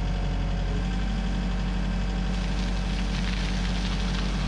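Case CX145D excavator's diesel engine running steadily under hydraulic load as the arm swings and dumps a bucketful of soil. A hiss builds a little past two seconds in as the soil spills from the bucket.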